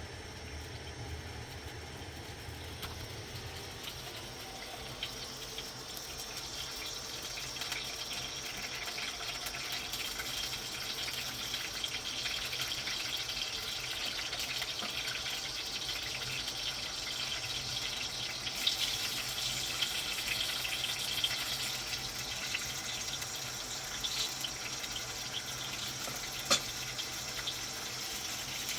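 Water running or splashing, a steady hiss that grows a little louder after the first few seconds, with one sharp click near the end.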